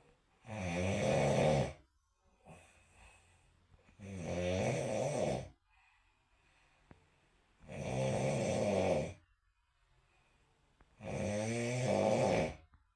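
A person snoring: four long snores, each about a second and a half, coming roughly every three and a half seconds, with quiet breathing pauses between.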